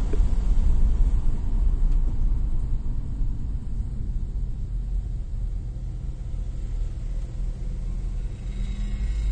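Nissan Maxima V6 with aftermarket headers and exhaust idling, a steady low exhaust rumble that eases slightly in level over the first few seconds. The idle is the one the owner describes as having a slight misfire.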